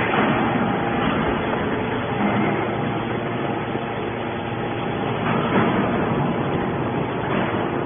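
Scrap metal baler running: a steady machine noise with a faint hum through it.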